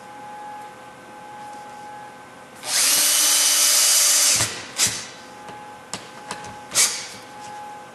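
Cordless drill/driver driving a screw through a hinge into wood: the motor runs steadily for about a second and a half, then gives two short bursts to snug the screw down.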